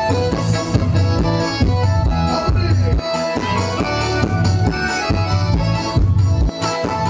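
Forró pé de serra music: an accordion playing the melody over a steady beat of low drum strokes.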